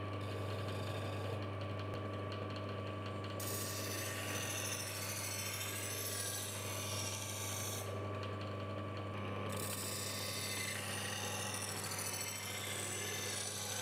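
Homemade lathe's electric motor running with a steady hum as a knife edge is honed on its MDF honing wheel. A scraping hiss of the blade on the polishing-paste-charged wheel sets in about three and a half seconds in, stops for a moment around eight seconds, then resumes.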